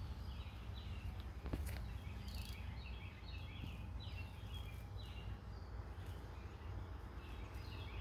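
Outdoor woodland ambience: a steady low rumble on the microphone, with many short, high, slightly falling chirps scattered throughout and a single click about one and a half seconds in.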